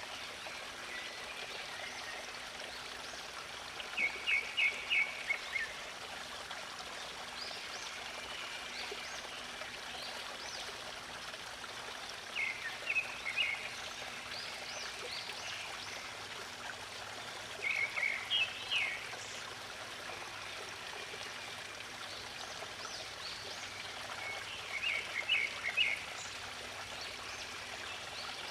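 Steady flow of a stream of running water, with a songbird singing a short phrase of quick high notes four times, roughly every six to seven seconds.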